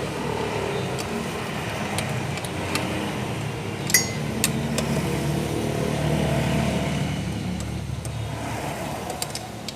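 A car engine running steadily, swelling slightly past the middle, with a few sharp metallic clicks about four seconds in.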